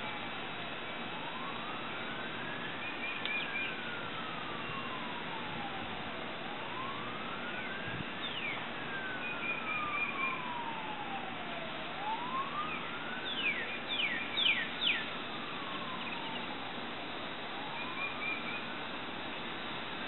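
A siren wailing, its pitch rising and falling slowly about every four to five seconds, with birds chirping over it and a quick run of louder chirps about two-thirds of the way through.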